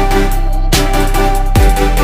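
Electronic background music with a heavy beat and a steady bass line.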